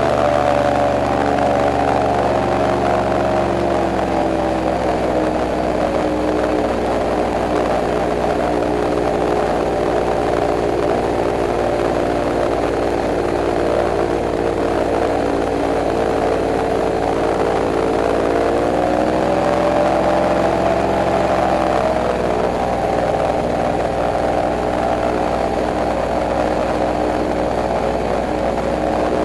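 Airboat engine and propeller running under way, a loud steady drone whose pitch drops a few seconds in, rises again about two-thirds of the way through and soon settles back down as the throttle is eased.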